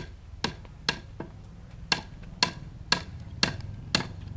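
Hammer driving nails through a wooden seat piece into a chair's back leg, with steady sharp blows about two a second.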